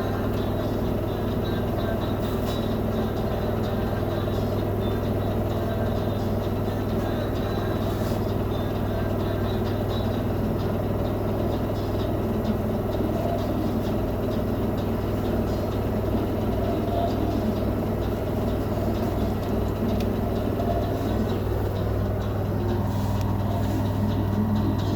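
LG commercial washing machine running with a steady low hum and rumble that does not change.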